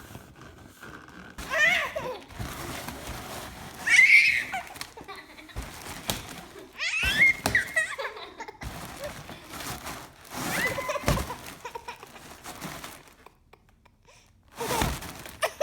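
A baby's high-pitched squeals and giggles, coming in about four short bursts a few seconds apart, each sliding up and down in pitch, with a few soft knocks in between.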